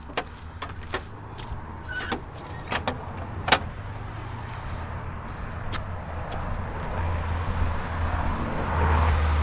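Road traffic: a car's tyre and engine noise building steadily as it approaches on the main road, loudest near the end. In the first three seconds, a few knocks and two short, high, steady squeals.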